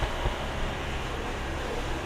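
Jaguar F-Type R V8 being driven: a steady, low engine drone with an even road-noise hiss, with no exhaust crackles.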